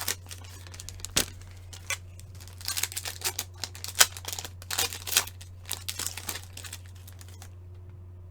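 Crinkling and rustling of opened foil trading-card pack wrappers and cards being handled, a quick run of short rustles that dies down about seven seconds in. A steady low electrical hum sits underneath.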